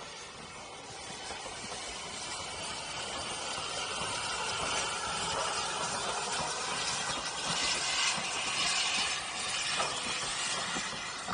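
Caledonian Railway Class 439 steam tank engine passing close by with its coaches: a hiss of steam and exhaust that grows louder as it approaches, loudest about eight seconds in as the engine goes by, then the coaches rolling past.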